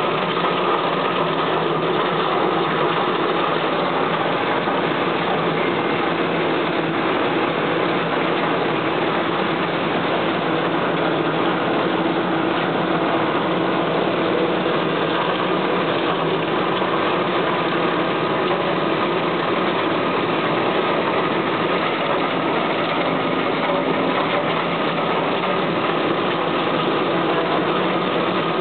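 Tamarind de-huller running steadily under load, shelling tamarind pods: a dense, even machine noise that holds the same level throughout.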